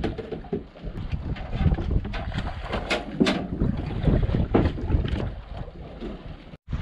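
Wind buffeting the microphone over the running noise of a boat at sea, rumbling unevenly, with a few sharp knocks a few seconds in. The sound cuts out for a moment near the end.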